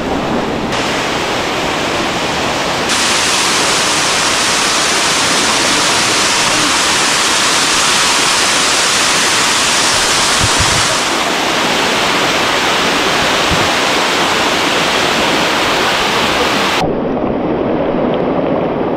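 Steady, loud rush of water from a mountain stream's waterfalls and cascades. It changes abruptly in brightness a few times and turns duller near the end.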